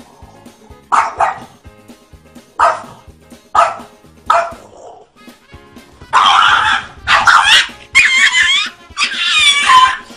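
Pet animal calls: four short, sharp calls spread over the first few seconds, then from about six seconds in a run of longer, louder calls that slide up and down in pitch.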